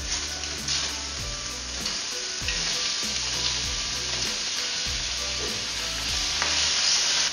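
Chopped bacon sizzling and frying in a hot stainless steel pan as it is tipped in and stirred with a spatula to brown. The sizzle builds and is loudest near the end.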